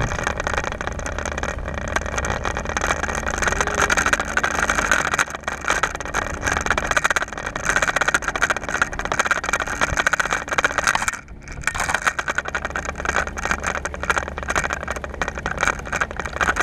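Wind buffeting and road rumble on a camera carried along a road on a moving bicycle, with a dense rapid flutter. The noise briefly drops about eleven seconds in.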